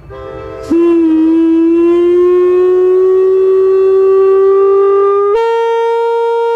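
Nathan M-series locomotive air horn, number 4 bell, blowing on a little air. It starts with a brief buzz, then settles into a clean, steady note that creeps slowly up in pitch and steps up to a higher note about five seconds in. The change from buzzing to a clean note shows the diaphragm now seating properly after voicing.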